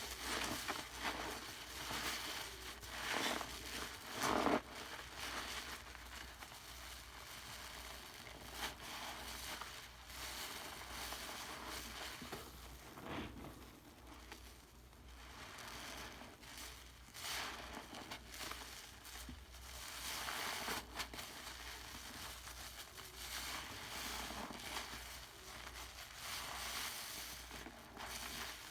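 Bath foam made with purple Pinalen cleaner crackling, a continuous fine crackle with a few louder rustling bursts.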